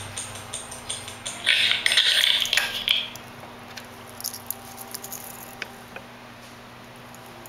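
Steady even ticking of an Omega Seamaster De Ville's mechanical movement, beating at 18,000 per hour on a timegrapher's microphone clamp. About a second in it gives way to loud scraping and rattling as the watch and its metal bead bracelet are pulled out of the clamp, followed by a few light clicks.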